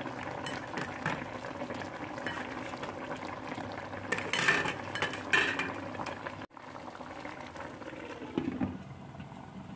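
Tamarind fish curry bubbling steadily as it simmers in a wok, with a brief clink of a glass lid near the end.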